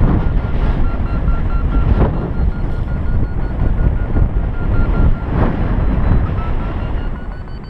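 Wind buffeting the microphone in flight, with a paragliding variometer beeping rapidly under it. The beeps hold a steady pitch, then rise in pitch near the end, the variometer's signal of climbing in lift.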